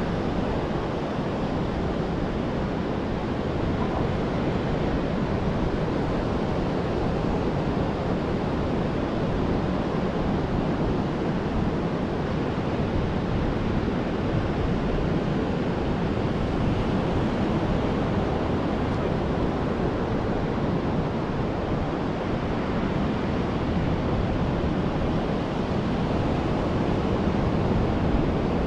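Ocean surf washing onto the beach, a steady rush of waves with no breaks.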